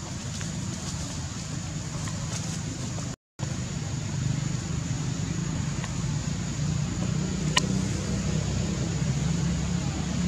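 Steady low outdoor background rumble, broken by a split-second dropout to silence about three seconds in, with one short high squeak about two-thirds of the way through.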